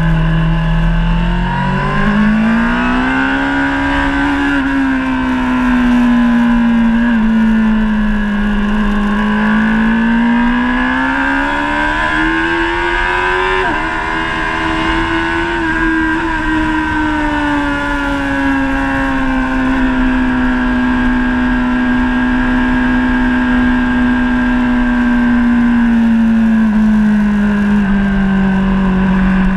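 Honda CBR1000RR SP Fireblade's 999 cc inline-four engine running under way, heard from a camera mounted on the bike. Engine speed rises about two seconds in, dips, climbs to its highest around the middle, then slowly eases back down.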